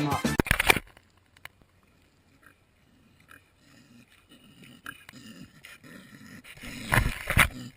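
Sounds of an animal: faint low sounds at first, then two loud short calls close together near the end.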